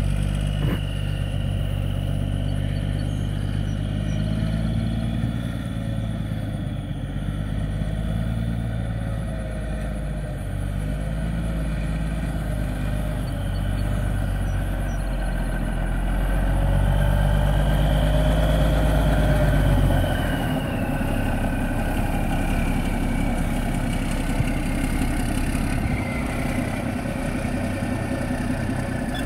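Diesel engine of a 1988 Freightliner FLD 120 truck tractor running as the truck drives slowly. It grows louder for a few seconds past the middle, then settles to a lower, steadier run while a high whine falls in pitch.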